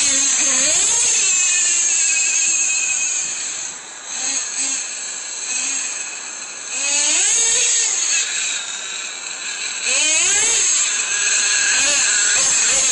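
Traxxas Revo nitro RC monster truck's small glow-fuel engine running at a high-pitched whine, revving up and down in repeated sweeps as it is driven. It drops quieter for a few seconds midway as the truck goes farther off, then is loud again with more revving near the end as it comes back close.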